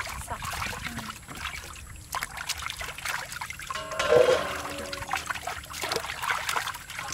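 Water splashing and trickling in a metal basin as hands wash ears of husked corn, dunking and rubbing the cobs. A brief, louder pitched sound comes about four seconds in.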